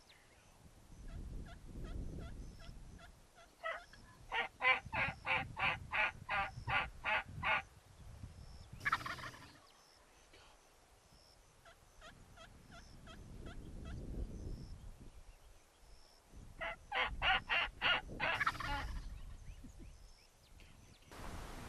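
Rio Grande wild turkey calling: a run of about a dozen evenly spaced notes, then a short rattling gobble. The same sequence comes again shorter near the end.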